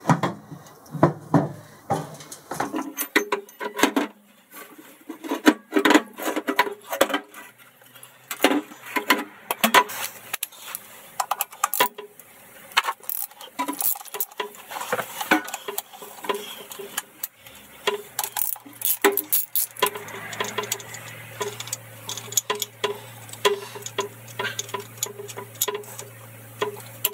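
Irregular metallic clicks and clinks of hand tools (spanner and socket ratchet) loosening the nuts and bolts on a Boxford lathe's motor drive unit. A low steady hum comes in about two-thirds of the way through.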